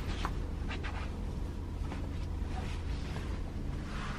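Steady low drone of the ferry's engines, with a few brief soft rustles of bedding being handled near the start.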